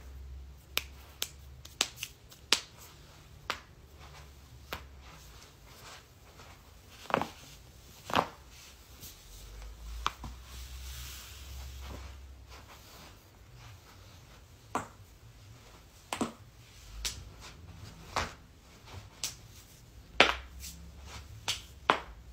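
Joints cracking: a series of sharp pops at irregular intervals, roughly one a second, some much louder than others, as a person cracks her knuckles and other joints one after another.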